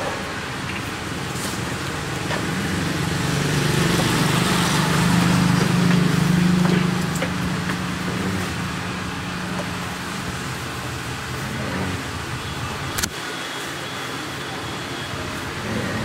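A steady background rush with a low motor hum that swells over several seconds in the first half and then fades, like a vehicle passing; a single sharp click comes near the end.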